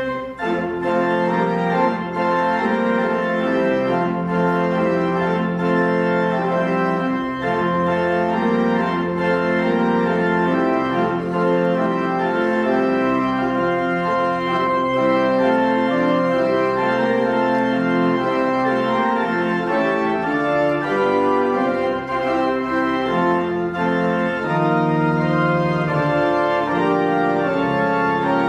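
Organ playing a slow piece of held, sustained chords that change every second or so, at an even volume.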